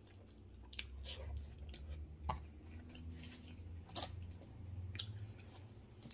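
Close-up chewing of a mouthful of wet burrito: soft, wet mouth sounds with a handful of sharp smacks and clicks scattered through.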